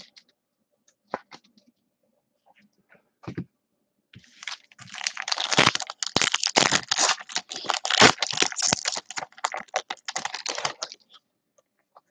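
Foil wrapper of a Topps Chrome baseball card pack crinkling and tearing as it is ripped open by hand: a dense crackle starting about four seconds in and lasting about seven seconds, after a few light scattered clicks.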